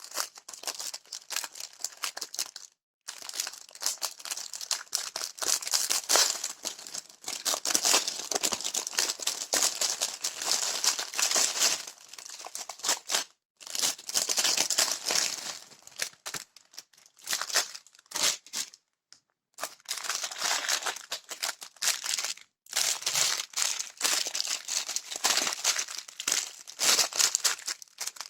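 Packaging of a set of adhesive hooks being crinkled and torn open by hand: a dense crackling that goes on almost throughout, broken by a few short pauses.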